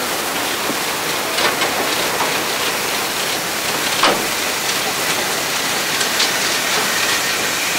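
Achenseebahn rack steam locomotive No. 3 giving off a steady hiss of steam as it backs slowly up to the carriage, with a few sharp knocks, the loudest about four seconds in.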